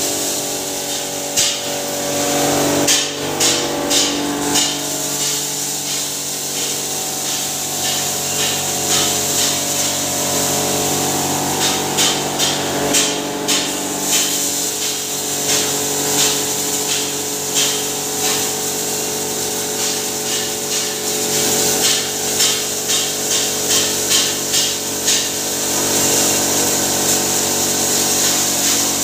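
Hammer mill grinder running under power, its electric motor and blower humming steadily under a high rushing hiss. Grain fed into the hopper rattles and crackles as it is smashed, in bursts of sharp clicks several times.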